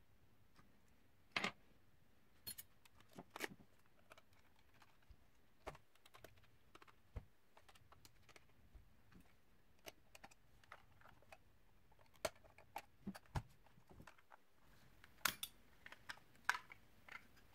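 Faint, scattered clicks and taps of a small screwdriver and plastic parts being handled on a Nikon SB-900 speedlight's casing as it is taken apart, with a few sharper clicks standing out.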